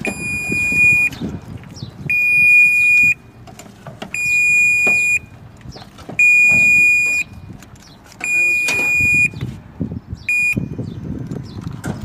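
Electronic alarm beeping: five high-pitched beeps of about a second each, two seconds apart, and a sixth cut short about ten seconds in, over a low irregular clatter.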